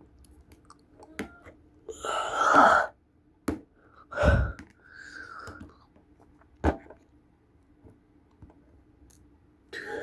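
A person's sighs and breathy, effortful vocal sounds, with a couple of sharp clicks from small tools working on a phone, over a faint steady hum.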